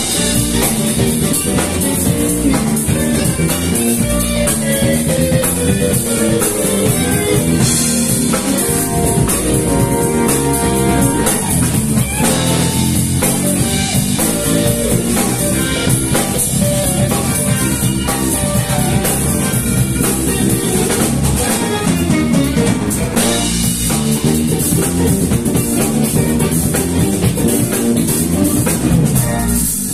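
Live band playing an instrumental with no vocals: two electric guitars, electric bass, drum kit and keyboard.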